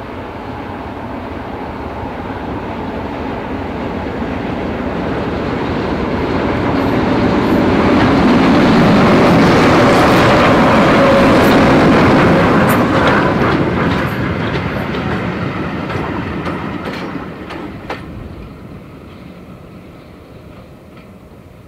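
Diesel shunters, led by Class 11 No. 12082 with Class 08s behind, approaching and passing close: engine noise and clickety-clack of wheels over the rail joints, building to a peak about halfway through, then fading as they run away. A series of wheel clicks comes as they pass, with one sharp clack near the end.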